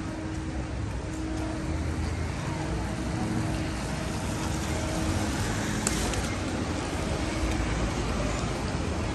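City street traffic: cars going by with a steady low rumble of engines and tyres, and a faint steady hum.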